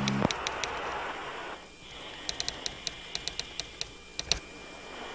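Typing sound effect: a string of sharp, irregular keyboard clicks, most of them in the second half, over a steady hiss.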